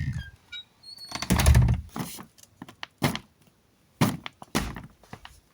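A heavy dull thud about a second and a half in, followed by a few sharp clicks and knocks.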